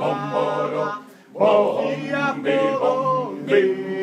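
Male choir singing a cappella in Sardinian polyphonic style, a steady low held part under the melody, in Sardinian words ('bombibara'). The voices break off briefly about a second in and come back in together.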